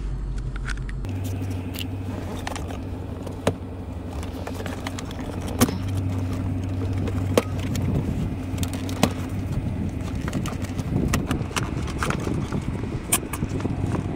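Plastic retaining clips of a 2010–2014 Ford Mustang's shifter console trim panel clicking and snapping as the panel is pried up by hand, about five sharp snaps with lighter rattling between them. A steady low hum runs underneath.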